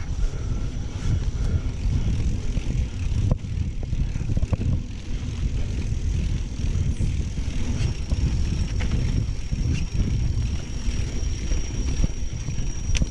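Wind buffeting and tyre rumble on a GoPro riding along a mountain-bike dirt trail, a steady low rumble with scattered sharp clicks and rattles from the bike.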